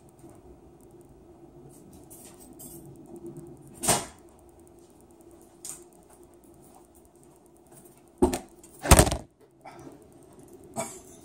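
A few light clicks of handling, then two loud knocks close together near the end as the phone filming stands up badly and topples over onto the hard table top.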